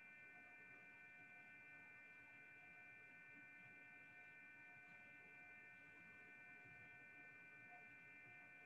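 Near silence: a faint, steady electrical hum with a few thin, constant high tones.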